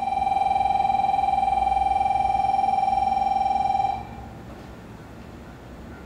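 Station platform departure bell: a steady electronic ringing tone that stops abruptly about four seconds in.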